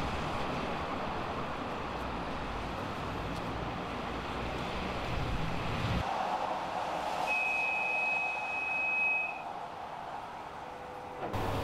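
Steady outdoor background noise around parked trams, changing abruptly twice. Past the middle, a single steady high-pitched beep lasts about two seconds.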